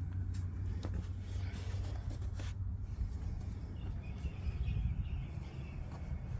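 Steady low outdoor background rumble with a few faint clicks early on and faint bird chirps about four seconds in.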